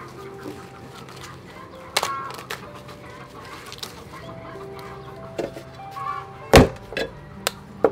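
Chickens clucking in the background while green corn husks are torn and stripped off the ears by hand, with a few sharp snapping rustles and one louder knock near the end.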